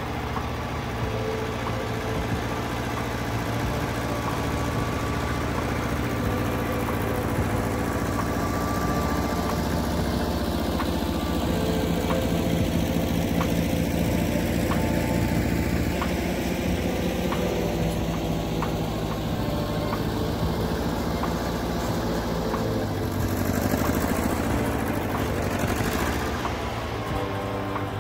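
Massey Ferguson 202 Workbull industrial tractor's engine running steadily while the tractor pushes snow with its front blade, its pitch shifting a few times.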